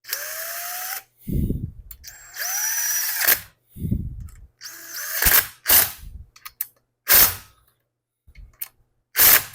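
Power drill run in a string of short bursts, its pitch rising as it spins up in the first two, with deep clunks from the work in between.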